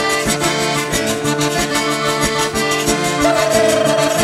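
Zydeco band playing an instrumental passage. A Castiglione diatonic button accordion carries the tune over a strummed acoustic guitar and the steady scraped beat of a frottoir (rubboard).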